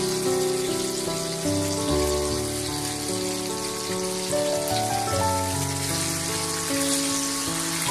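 Hot oil sizzling as whole climbing fish shallow-fry in a pan, under background music of held notes that change every second or so.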